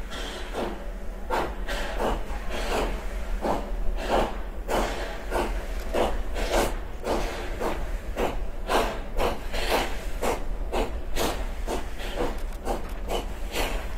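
Nevada Northern 81, a 2-8-0 steam locomotive, chuffing as it works a train forward. Its exhaust beats quicken from about two to about three a second as it picks up speed.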